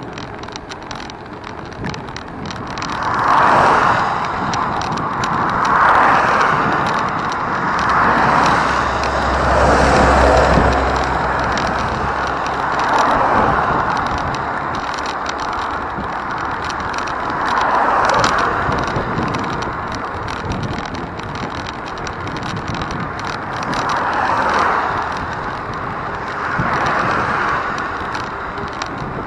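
Road traffic: vehicles pass one after another, about eight times, each one's tyre and engine noise swelling up and fading away over a second or two.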